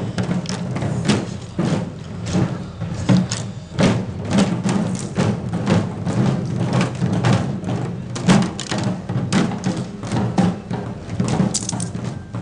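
Shishi-odori deer dancers' belly drums beaten in a fast, uneven rhythm of several strikes a second.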